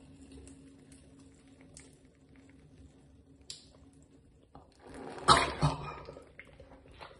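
Nasal irrigation with a squeeze bottle of saline: faint drips and small clicks, then about five seconds in a sudden loud, noisy burst of breath and water lasting about a second as the saline is blown out through the nose and mouth.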